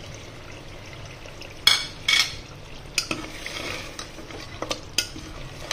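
A steel spoon stirring mutton stew in a pressure cooker, scraping and clinking against the pot, loudest twice about two seconds in. Under it the stew sizzles steadily on the flame.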